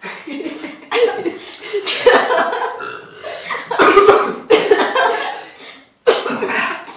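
People coughing and burping after gulping carbonated cola, in about five loud bursts, mixed with laughter.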